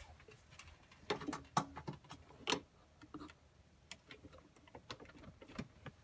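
Scattered light clicks and taps from handling a handheld multimeter and its test leads, the sharpest a little over a second in and about two and a half seconds in.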